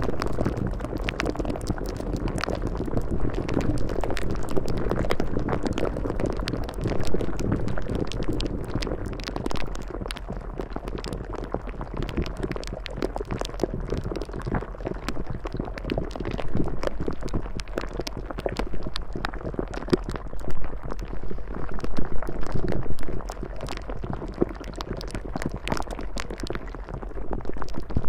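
Steady bubbling, churning water, with a dense stream of small pops over a low rushing wash, rising and falling in loudness and swelling louder near the end.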